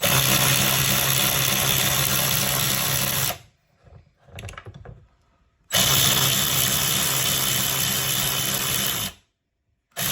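A small electric power tool running at a steady speed, spinning a 3/8-drive hex socket. It runs for about three seconds, stops, runs another three seconds, then starts again at the very end.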